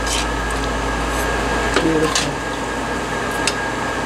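Steady hum of commercial kitchen equipment, with a few light clinks and scrapes of a metal basting spoon in an enamel roasting pan.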